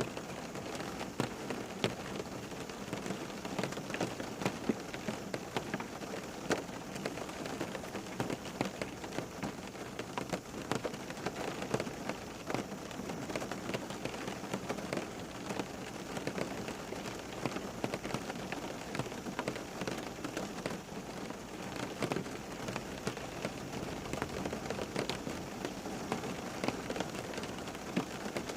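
Steady rain falling, with many individual drops pattering and ticking on a hard surface.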